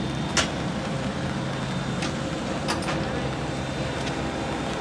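Steady machine hum on an airport apron beside a parked turboprop airliner, several even tones held without change, with a few short sharp taps scattered through it.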